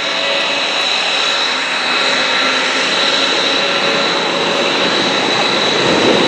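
Grumman F7F Tigercat and F8F Bearcat warbirds passing overhead, their Pratt & Whitney R-2800 radial piston engines running in a steady drone that grows slightly louder near the end.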